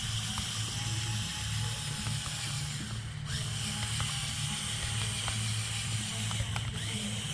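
Lego RC crawler's electric motors and plastic gears running with a steady whir and scattered ratcheting clicks. The whir cuts out briefly twice, about three seconds in and again near the end.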